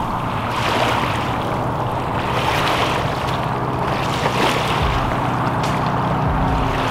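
Small waves lapping and sloshing in shallow sea water at the shoreline, swelling and easing every second or two, with wind on the microphone.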